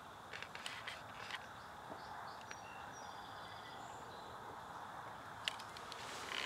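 Quiet woodland morning ambience: a faint steady hiss with a few short, faint high bird chirps about two to three seconds in, and scattered small clicks.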